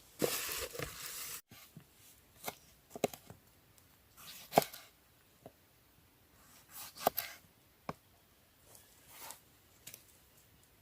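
A burst of rustling that cuts off abruptly about a second and a half in, then scattered sharp clicks and snaps with soft rustles between them: close-up handling and breaking or cutting work.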